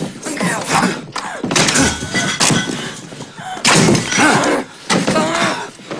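A violent scuffle: a man and a teenage boy yelling and grunting, with thuds and crashes as a kitchen chair is shoved and banged about.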